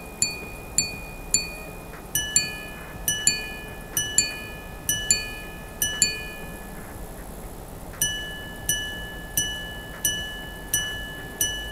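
Jacob & Co Twin Turbo minute repeater chiming the time, its long gongs shaped to follow the case and giving a cathedral-gong sound. A few single strikes come first, then a run of two-tone pairs, then after a short pause a longer series of single strikes, each one ringing on.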